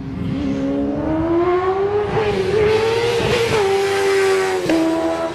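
A vehicle engine accelerating hard. Its pitch climbs steadily for about three seconds, then drops sharply twice as it shifts up.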